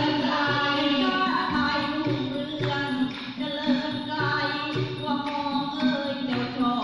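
Thai folk song performed live: voices singing long held notes, with sharp percussion strokes every second or so.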